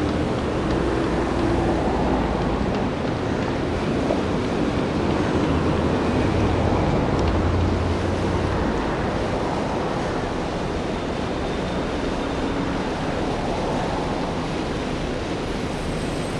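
Steady outdoor background noise: a low rumble with a hiss over it, without any clear single source standing out.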